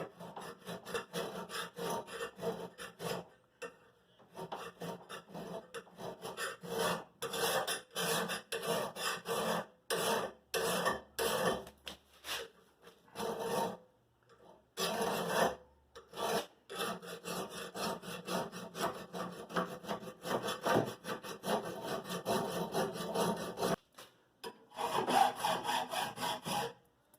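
A hand tool rasping back and forth in a steady rhythm of quick scraping strokes, broken by a few brief pauses, as the knife is worked by hand.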